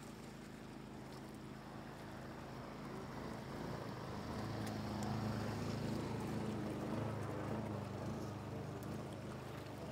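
Shallow floodwater rushing over a road, under a low engine-like hum that swells in the middle and eases off near the end.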